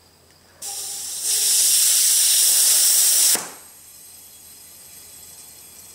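Compressed air hissing from a scuba tank through a RAP4 fill station into a paintball HPA tank as the scuba tank's valve is opened. The hiss starts under a second in, grows louder a moment later, and cuts off sharply about three and a half seconds in.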